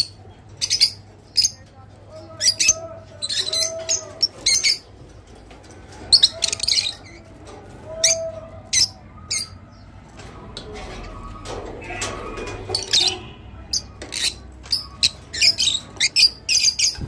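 Rosy-faced lovebirds chirping and squawking: many short, sharp, high-pitched calls in quick irregular runs.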